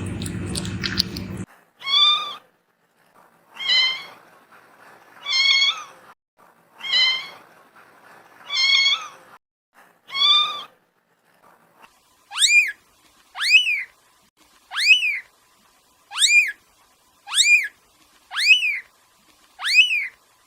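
Kitten meowing repeatedly: six meows evenly spaced, then a quicker run of eight shorter, higher meows that each fall in pitch. A muffled noise fills the first second or so.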